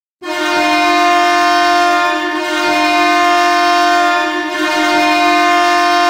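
Belleville Senators' ice-hockey goal horn sounding one long, steady blast of several tones, which signals a goal scored. It starts sharply just after the start.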